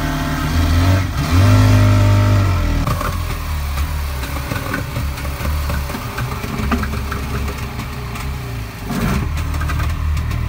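Yamaha 40 hp two-stroke outboard motors running at idle, revved up briefly about a second in and settling back to a steady idle after about three seconds.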